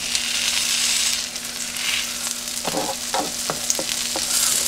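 Hash browns and bacon sizzling on a Farberware electric nonstick griddle, with a spatula scraping and tapping the cooking surface several times in the second half. Under it runs the griddle's steady electric buzz, which the cook calls the loudest he has ever heard from such an appliance. The buzz cuts out right at the end as the heating switches off.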